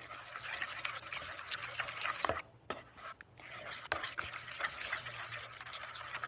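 A utensil stirring a chickpea-flour and water paste in a stainless steel mixing bowl: continuous scraping with small clicks against the metal, pausing briefly a couple of times.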